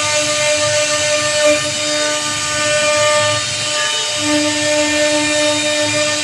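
CNC router spindle running steadily while its bit carves relief into a teak door panel: a constant pitched whine over the rasp of the cutting, with a low tone growing stronger about four seconds in.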